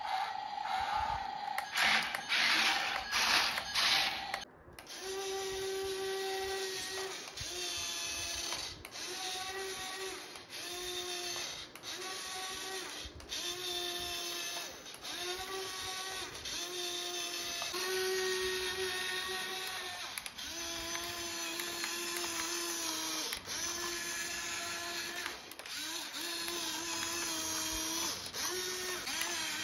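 Small electric drive motor of a toy RC farm tractor whining as it drives, in repeated runs of one to two seconds with short breaks and a steady pitch within each run. A few seconds of loud, rough noise come first.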